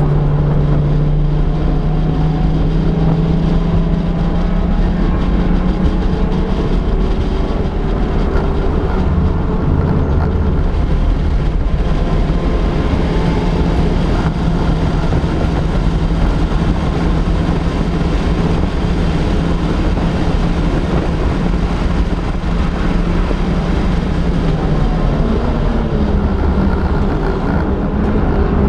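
Honda Fit touring race car's 1.5-litre four-cylinder engine running hard at racing speed, a loud, steady engine note mixed with wind and road noise as picked up by a camera mounted on the car.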